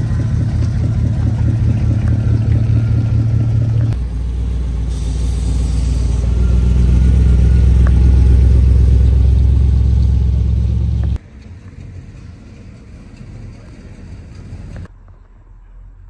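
Car engines running with a deep, loud rumble, heard across several abrupt cuts. The loudest stretch swells a little from about four to eleven seconds in. After about eleven seconds the engine sound drops away to something much quieter.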